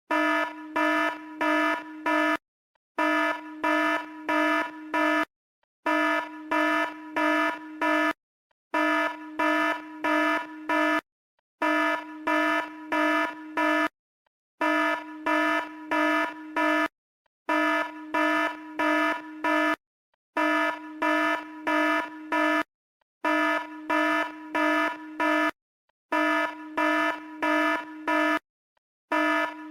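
Electronic red-alert alarm: a harsh, buzzy tone at a steady low pitch, sounding in groups of four quick blasts. Each group is followed by a short pause, and the pattern repeats about every three seconds.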